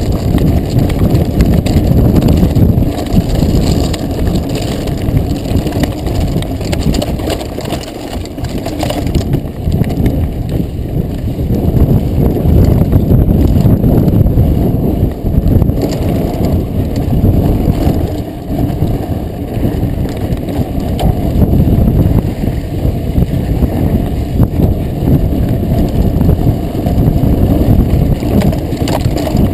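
Mountain bike riding fast down a rocky dirt trail: steady wind buffeting the microphone, mixed with the rattle and crunch of the tyres and frame over loose stones.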